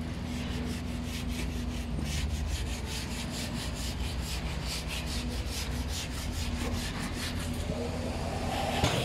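Quick rhythmic rasping strokes, like sawing or rubbing at a board, over a steady low machine hum; near the end a rising whine comes in.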